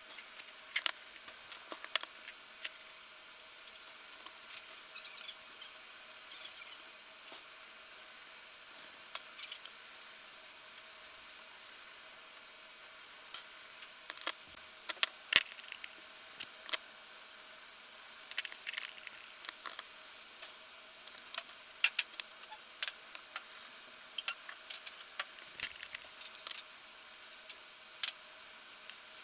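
Small metal parts clicking and clinking as steel shafts, ball bearings and aluminium pulleys are handled and fitted by hand into 3D-printed plastic plates. The clicks are sharp, irregular and come in clusters, with a lull about a third of the way in.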